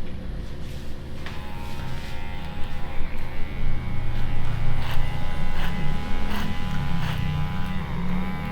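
Electric hair clippers running with a steady buzz, with short sharp clicks in the second half.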